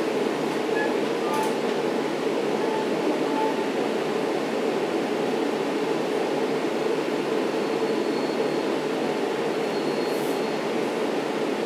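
Steady rumble inside a Long Island Rail Road C3 bilevel coach hauled by an EMD DE30AC diesel, as the train rolls slowly along a station platform to a stop. A faint high brake squeal comes twice near the end.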